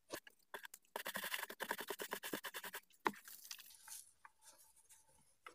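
A stiff paintbrush scrubbed rapidly back and forth over car floor carpet, a quick run of scratchy strokes lasting about two seconds. A single sharp knock follows, then faint paper rustling as the sheet holding the swept-up dirt is handled.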